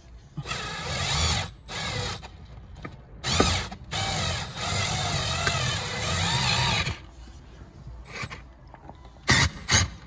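Fiber cut-out line being wound through windshield urethane by a cut-out winder tool, in several bursts of a wavering, squealing scrape, the longest lasting about three seconds near the middle. Two sharp clicks come near the end.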